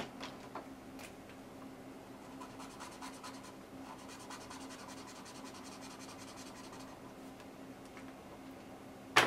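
Felt-tip marker scribbling quickly back and forth on sketchbook paper, a faint, rapid scratching as an area is filled in with colour. A sharp click near the end.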